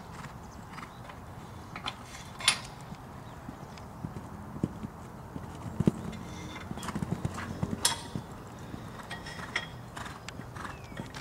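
Horse's hoofbeats on sand footing as it canters and jumps fences, a cluster of thuds in the middle. Two sharp clicks a few seconds apart are the loudest sounds.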